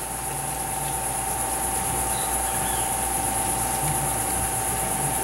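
Steady, high-pitched buzzing of insects, over a constant mid-pitched tone and a low hum.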